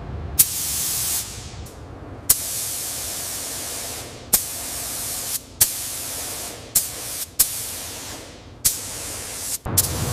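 Paint spray gun spraying primer in a series of short bursts: each trigger pull starts with a sharp click and gives an even hiss for half a second to two seconds, about eight times.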